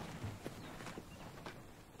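Elephants moving about and feeding: faint, scattered soft thuds and clicks.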